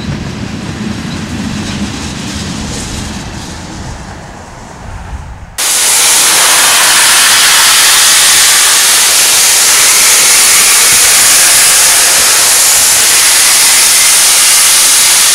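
Freight train tank cars rolling past on the rails with a low rumble, easing off. After about five and a half seconds it gives way abruptly to a loud, steady hiss of steam venting from Union Pacific 4014, a Big Boy 4-8-8-4 articulated steam locomotive.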